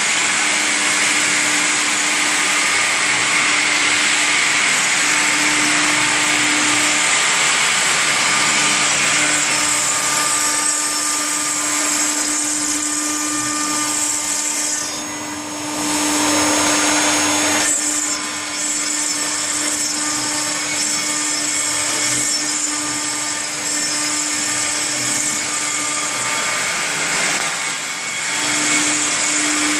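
Stone CNC router's spindle running with a steady whine while its water-cooled cutter engraves a stone slab, over a continuous hiss of cutting. The sound dips briefly about halfway through.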